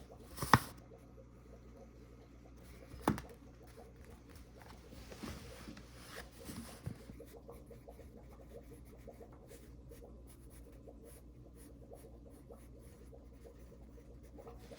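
Hand work on wood: two sharp knocks, half a second and three seconds in, then a few seconds of light scratching and rubbing, followed by faint scattered ticks.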